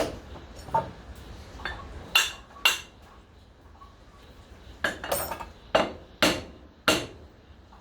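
Hammer tapping on metal to knock a pressed-in part loose from a Ryobi trimmer engine during teardown: about ten sharp metallic strikes at an uneven pace, each with a brief ring, the harder blows in the middle and second half.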